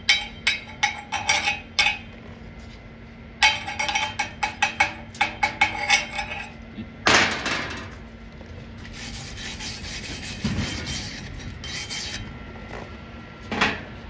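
Chipping hammer striking slag off a fresh flux-core weld cap on a steel plate: two runs of quick metallic taps, several a second, then a heavier knock about seven seconds in. Softer scraping follows, with one last knock near the end.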